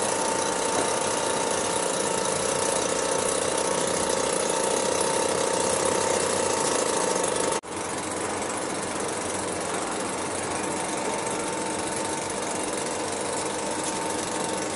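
Class 91 electric locomotive standing at the platform with its equipment running: a steady mechanical drone with a hum. It cuts off abruptly about seven and a half seconds in and picks up again slightly quieter.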